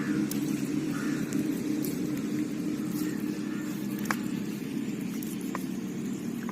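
A motor running steadily at an even pitch, with a couple of faint sharp clicks partway through.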